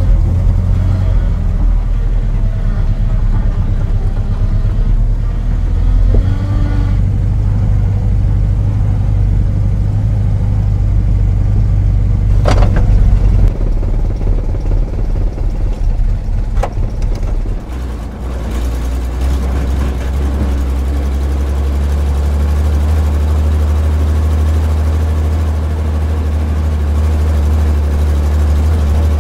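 A heavy vehicle engine runs steadily with a deep hum. About three-quarters of the way through, it settles into a lower, even idle. Two brief sharp clicks sound near the middle.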